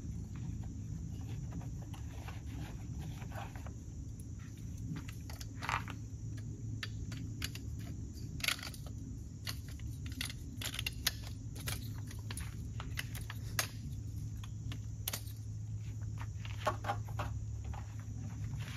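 Scattered clinks, rattles and knocks of a folding metal camp table frame being handled, unfolded and set down, thickest through the middle of the stretch.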